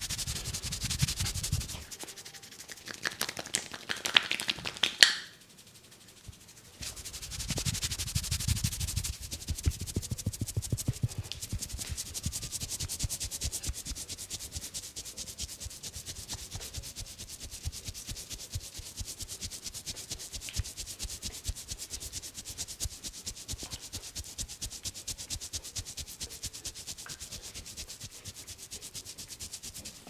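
Barber's hands rubbing and tapping fast on a person's scalp and hair during a vigorous head massage: a quick, even run of strokes that stops for a moment about five seconds in, then carries on.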